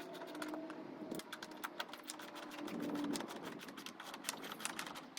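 Hand ratchet with a 12 mm socket clicking in quick, irregular runs while loosening the bolts of a car door hinge.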